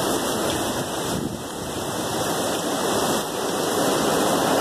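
Hurricane-force wind and heavy rain: a steady rushing of wind through trees and driving rain. It eases slightly about a second in, then builds again.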